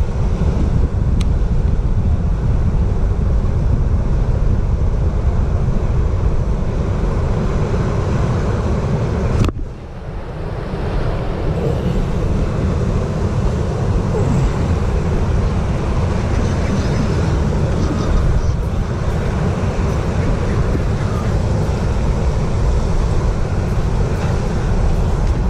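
Bass boat running under way on its Mercury Pro XS four-stroke outboard, with heavy wind noise on the microphone. The noise dips briefly a little under ten seconds in, then carries on.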